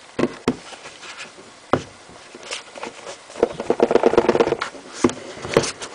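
Hands working the tight-fitting cardboard lid of an iPad box off its base: scattered light knocks and scrapes, with a stuttering rub of cardboard sliding on cardboard lasting about a second, starting about three and a half seconds in.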